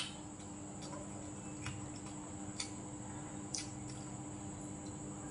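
A person eating with chopsticks and a spoon: faint clicks of the utensils and mouth sounds, roughly once a second, over a steady low hum.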